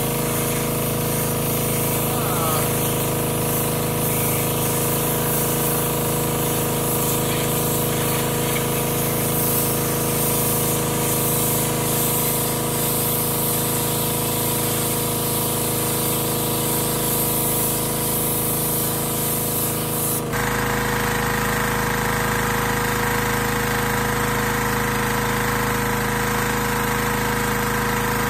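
Gas-engine pressure washer running steadily while its spray hisses against a stainless steel washing-machine drum. About two-thirds of the way through, the sound changes abruptly and the engine note and hiss shift.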